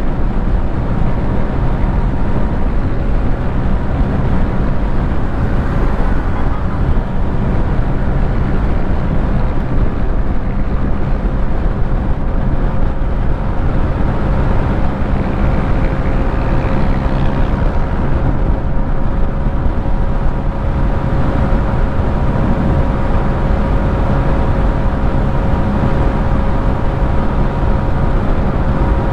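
Steady rush of wind and road noise with the drone of a maxi-scooter's engine, cruising at highway speed of around 110 km/h.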